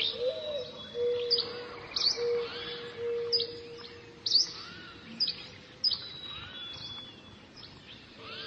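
Birds chirping: sharp, high chirps about once a second over a steady low tone.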